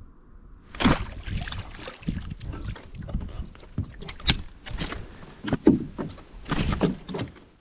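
A small boat moving through the water under oars: irregular splashes of the blades and knocks against the boat, starting about a second in.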